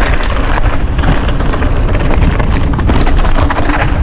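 Mountain bike riding fast over a rough, stony dirt trail: tyres crunching on loose stones and the bike rattling with a constant clatter of small knocks over a steady low rumble.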